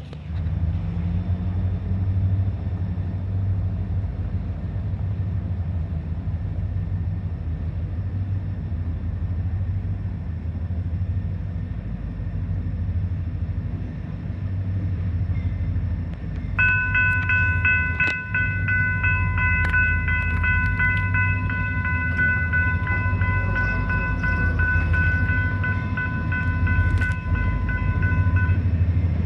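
EMD SD40-2 diesel-electric locomotive running with a steady low engine rumble. A bit over halfway through, its air horn sounds one long multi-note chord for about twelve seconds.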